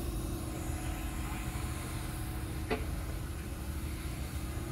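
A steady low rumble with a constant hum, and one sharp knock about two and a half seconds in.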